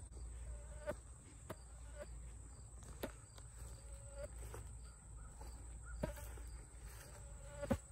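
Insects chirring outdoors in one steady, high, even pitch, with a few sharp clicks and short faint calls scattered through.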